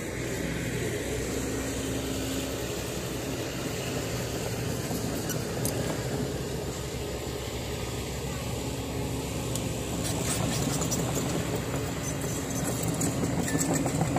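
Dump truck's diesel engine running steadily as the truck creeps forward with its tipper bed raised, spreading a load of soil.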